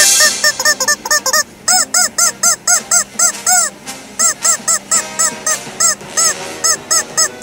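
Rubber chicken toys squeaked in three quick runs, each squeak rising and falling in pitch, the squeaks standing in for the puppets' spoken lines. Faint music plays underneath.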